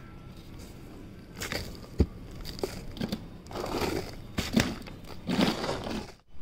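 Crunching and crinkling handling noises from soil and plastic being worked by hand, coming in irregular bursts with a few sharp clicks from about a second and a half in.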